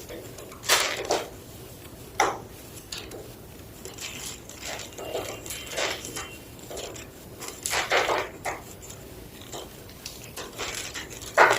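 Slabs of gym chalk being crunched: a series of irregular dry crunches and snaps, some single, some in quick clusters, with short pauses between.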